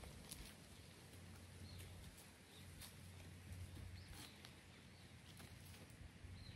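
Near silence with a few faint, scattered rustles and light steps of a wild boar walking over dry leaf litter and twigs.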